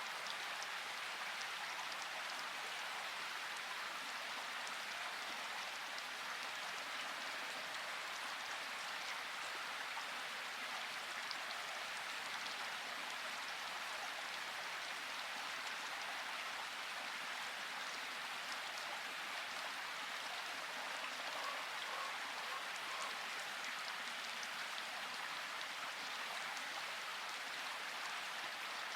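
Steady rainfall, with individual drops ticking through an even hiss of rain.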